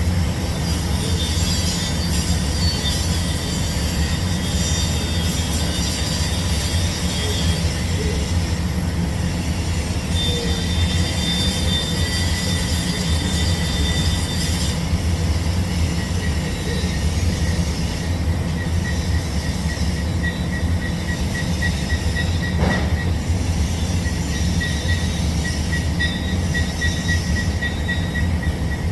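TIG welding arc burning steadily on steel pipe during the root pass, a continuous hiss over a low electrical hum, with thin high-pitched tones coming and going.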